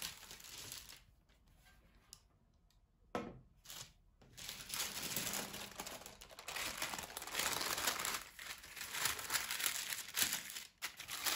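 Baking paper crinkling and rustling as it is handled and lifted with the dough on it and laid into a metal baking tray. The rustling drops to a lull about a second in, with one short sharp sound around three seconds, then runs on steadily from about four and a half seconds.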